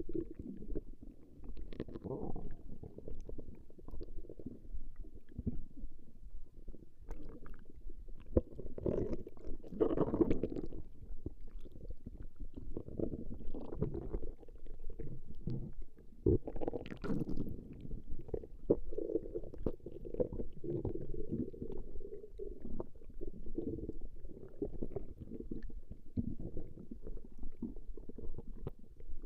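A person's stomach growling: a continuous run of low rumbles and gurgles, with louder gurgles about ten seconds in and again past the middle.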